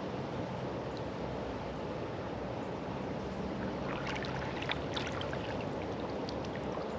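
Steady rush of flowing creek water, with a scatter of light ticks and drips about four to five seconds in.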